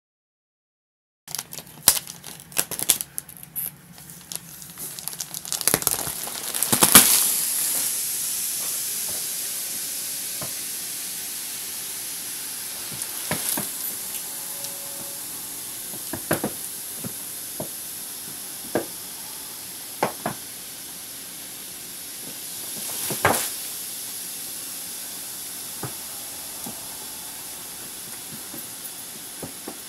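Air hissing steadily into a slit vacuum-sealed plastic bag as a compressed pocket-spring mattress expands inside it, with the plastic wrap crinkling and popping now and then. It starts with a burst of crackling and clicks, and after a loud peak the hiss slowly fades.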